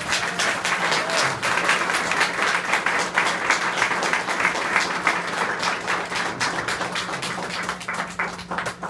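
Audience applauding: dense clapping from a room full of people that thins out near the end.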